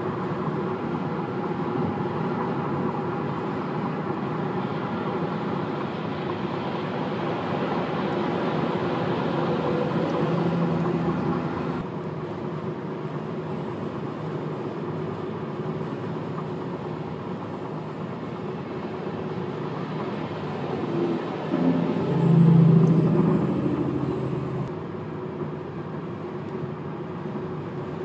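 Steady engine and tyre drone of a car at highway speed, heard from inside the cabin, with a louder swell about 22 seconds in.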